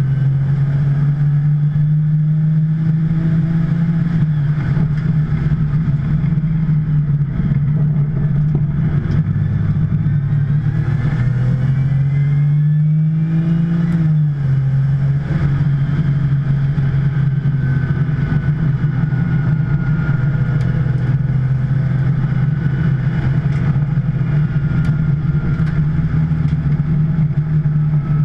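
2010 Porsche 911 Turbo's twin-turbo flat-six running hard under race load, still making full boost. Its revs climb and drop abruptly right at the start and again about 14 seconds in, with a faint high whine in the second half.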